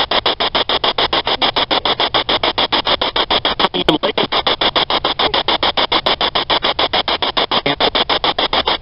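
Night insects chirping in a loud, steady, rapid pulse of about eight beats a second.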